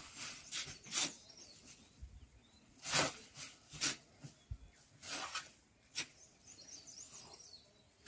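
Faint, scattered scrapes and rustles of sand being scooped and sacks being handled in a truck bed, each lasting a moment. A few faint bird chirps come near the end.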